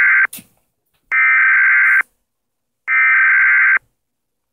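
Emergency Alert System SAME header: bursts of digital data tones, each about a second long with short silent gaps. The first ends just after the start, and two more follow in full. The header marks the start of an emergency alert.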